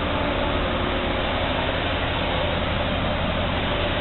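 Steady mechanical background noise, an even hiss over a low, fluttering rumble.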